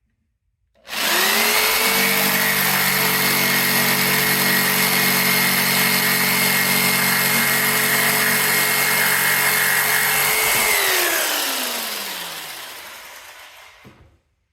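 Jigsaw cutting through a 1x4 pine board, its motor holding a steady pitch for about ten seconds, then winding down with a falling pitch until it stops.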